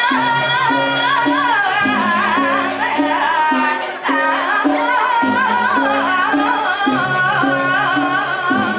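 Music: a sung melody that bends and wavers over a repeating low bass line.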